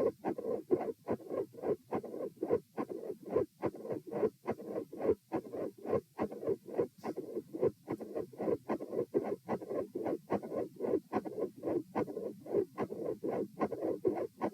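Human heart sounds heard through a stethoscope: a steady lub-dub rhythm of short, dull beats at a resting rate. The recording's title notes a split second heart sound and a mid-systolic murmur.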